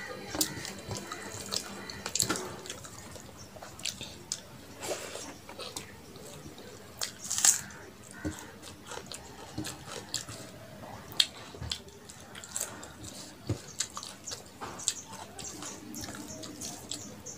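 Eating rice and chicken curry by hand: fingers squish and mix wet rice on a steel plate between chewing and lip-smacking mouth sounds. Irregular sharp clicks run throughout, the loudest a little past halfway.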